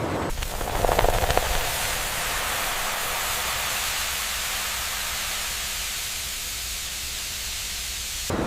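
A steady hiss, with a brief louder clatter about a second in.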